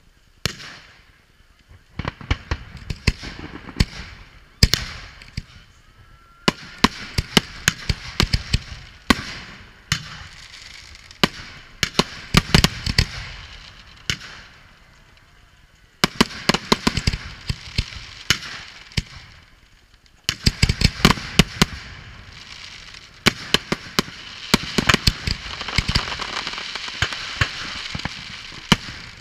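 Aerial fireworks display: rapid volleys of sharp bangs and crackling from bursting firework shells. The volleys come in waves, with brief lulls at the start, about fourteen seconds in and about twenty seconds in.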